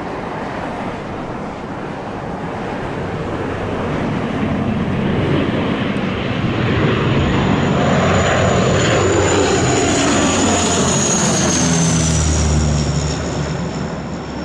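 Airliner passing close by on approach: engine noise builds over several seconds, holds, then a high whine drops in pitch as it goes past and the sound starts to fade near the end.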